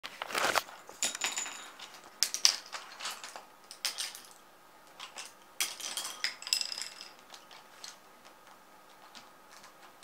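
Hooded crow tugging pens, pencils and paintbrushes out of a leather pencil case and dropping them on a wooden parquet floor: bursts of clatter, light knocks and short clinks, quieter near the end.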